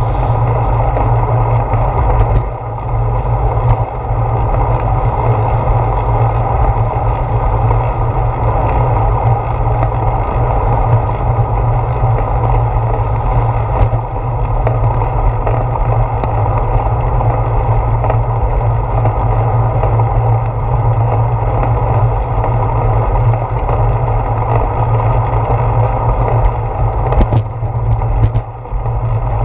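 Steady wind rumble and tyre-and-road vibration from a bicycle riding on a concrete sidewalk, picked up by a camera mounted on the handlebars. The sound dips briefly about two and a half seconds in and again near the end.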